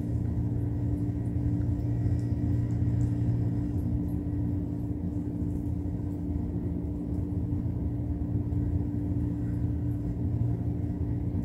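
A steady low mechanical hum holding a constant pitch, the background noise of the room.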